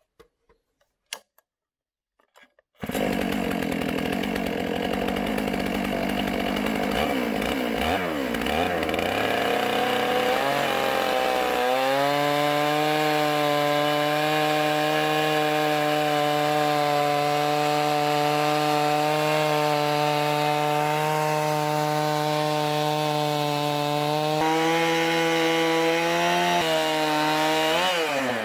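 Stihl chainsaw mounted on a Logosol F2 chainsaw mill, running at full throttle while ripping a cedar log lengthwise into bevel siding boards. It comes in suddenly about three seconds in, wavers in pitch for several seconds, then holds a steady note under load. The note falls away sharply just before the end.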